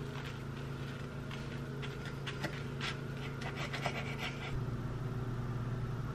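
Chef's knife cutting through a crisp, toasted tortilla quesadilla onto a cutting board: a run of short crunches and taps that stop about four and a half seconds in. Under it runs a steady droning hum, which is taken for power washing going on outside.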